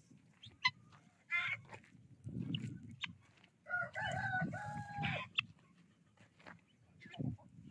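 A rooster crowing once, about four seconds in, a drawn-out call of about a second and a half, with short clucks and calls from the fowl before and after it.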